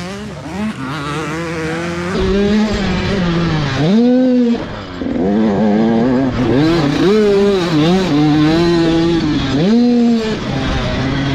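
Motocross dirt bike engine, heard close up from the rider's camera, revving up and down as it is ridden around the track. There are sharp rev swings at about four seconds and again near the end, with wind noise over the microphone.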